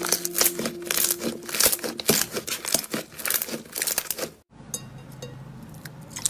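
Slime being squeezed and worked by hand, giving dense crackling pops and clicks, with background music fading out early on. The crackling stops abruptly about four and a half seconds in, leaving only faint scattered clicks.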